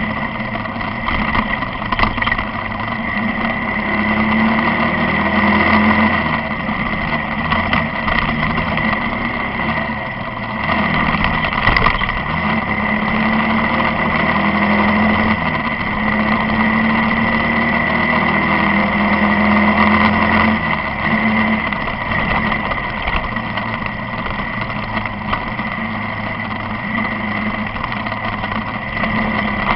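Motorcycle engine running on the move, its pitch rising and falling repeatedly with throttle changes, over steady road and wind noise.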